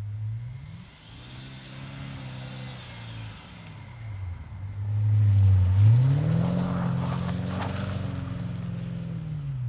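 BMW E65 745i's V8 through a straight-pipe exhaust, revving up and holding revs twice. The second time is louder and higher, and the revs drop near the end.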